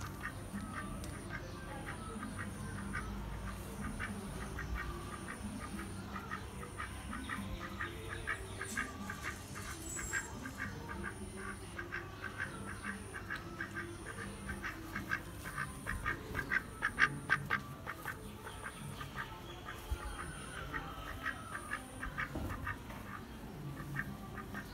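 White domestic duck quacking in a long run of short, quick quacks, busiest and loudest a little after the middle.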